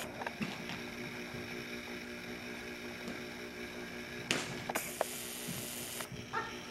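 Steady electrical hum made of several low tones at once, with faint soft thuds of horse hooves on sand arena footing and a burst of hiss about five seconds in.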